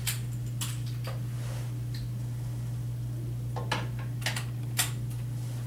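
Room tone in a meeting room: a steady low hum, with a few light clicks and knocks, one about a second in and a small cluster near the end.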